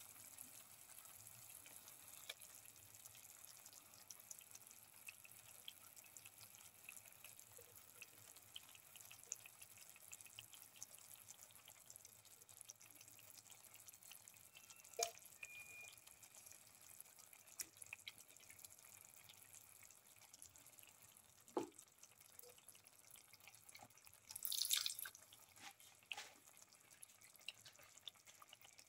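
Pan of spiced tomato gravy with fish pieces simmering faintly: scattered soft pops and drips over a low hiss. A short louder hiss comes a few seconds before the end.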